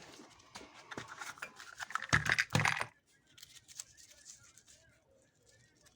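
Light clicks and rattles of small objects being handled as a new sewing-machine needle is taken out, with a louder rustle about two seconds in, then only faint ticks.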